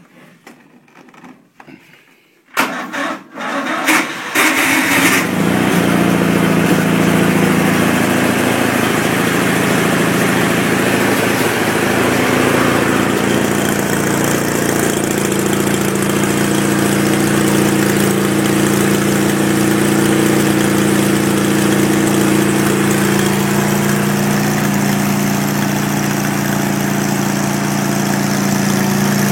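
Briggs & Stratton 20 hp lawn tractor engine being cranked over, catching about five seconds in, then running steadily through its custom dual-muffler exhaust.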